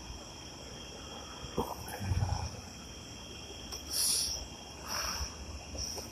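Steady, high-pitched chorus of crickets, with a few faint handling knocks and short rustles over it.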